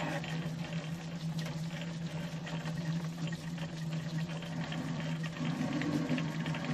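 A steady low machine hum with a rushing, bubbling noise and faint scattered ticks over it.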